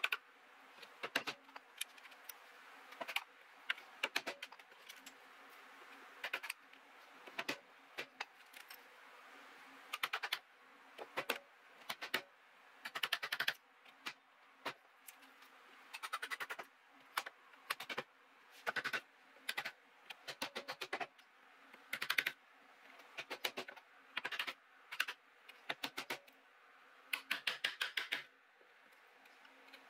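Bench chisel being tapped down into the waste between dovetails in a cypress board, chopping it out: short bursts of quick, light taps on wood, repeated every second or so.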